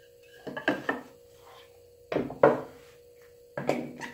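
Wooden boards knocking against a wooden fixture and the table saw's metal top as they are stood upright and set in place by hand: three short clusters of clunks, the loudest about two and a half seconds in.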